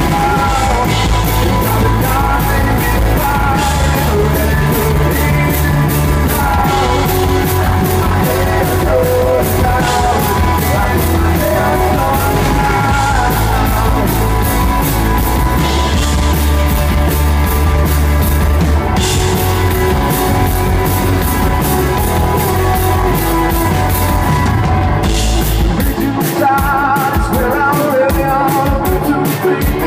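Live rock band playing a song: singing over electric guitars, bass guitar and a drum kit. Near the end the bass drops out and the band plays short, choppy hits.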